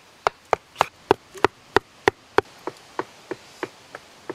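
A bamboo pole jabbed again and again into hard ground to dig a hole: short, sharp knocks at a steady rate of about three a second, a little softer in the second half.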